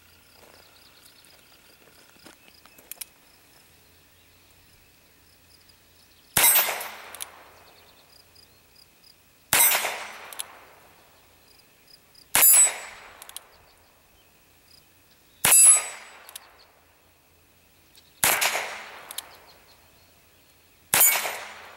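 Six single shots from a Ruger Single Six single-action revolver with a 9½-inch barrel firing .22 Long Rifle, spaced about three seconds apart. Each shot is followed by a ringing tail as steel targets are hit.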